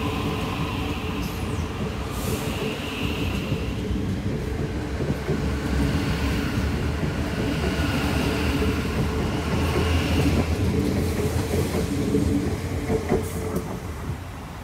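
Metro Trains Melbourne High Capacity Metro Train moving past along the platform: the electric traction motors hum with steady tones over the rumble and clatter of its wheels on the rails. It grows louder for most of the time, then fades near the end as the train pulls away.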